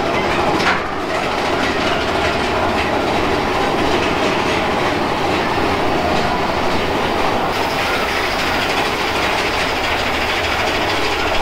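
Big Thunder Mountain Railroad mine-train roller coaster running along its track, a steady noise of the cars and wheels heard from a seat on board.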